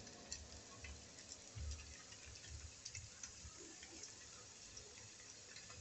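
Faint sizzling and crackling of hot oil deep-frying a maida dough cup moulded on a steel glass, with a few soft low bumps.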